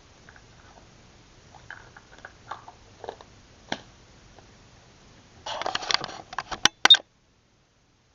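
Small plastic toys being handled: scattered light taps and clicks, then about a second of rustling and crackling and two sharp clicks, after which the sound cuts off abruptly.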